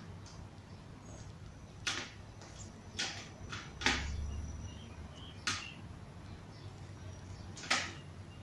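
Five sharp taps and knocks, with a dull thump about four seconds in, from a person moving on a wooden chair on a tile floor during a seated exercise with a ball.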